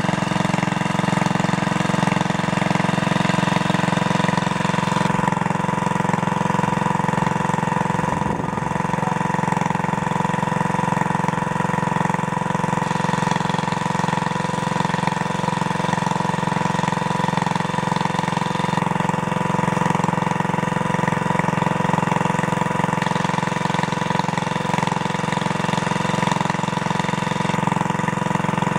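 Small petrol engine running steadily at constant speed, driving a water pump that drains the pond.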